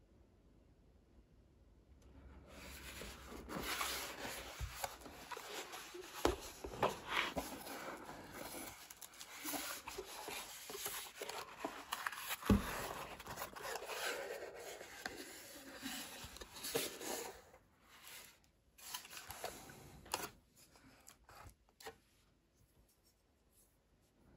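Cardboard gift box being handled: the inner box rubs and scrapes as it slides out of its cardboard sleeve, with a few dull knocks, the loudest about halfway through, then lighter handling sounds fading out near the end.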